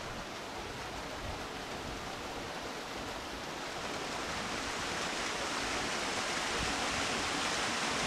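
Rushing water of a mountain stream and waterfalls, a steady even hiss that slowly grows louder.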